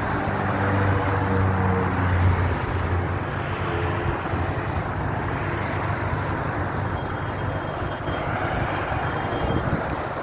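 A steady rushing roar with a vehicle engine humming, the engine plainest in the first three seconds.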